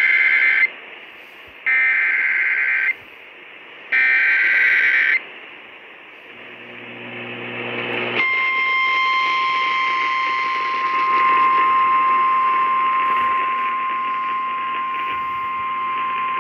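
Emergency Alert System activation heard over a radio broadcast. Three identical bursts of SAME header data screech, each about a second long and a second apart, carry the coded alert. After a short hissy gap, a steady single-pitched attention tone starts about eight seconds in and holds, announcing the warning message that follows.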